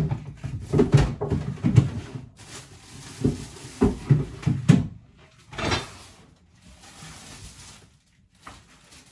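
Knocks and thumps of groceries being handled and put away in a kitchen, with cupboards being opened and closed: a quick run of short knocks over the first five seconds, a brief louder burst of noise near six seconds in, then quieter handling.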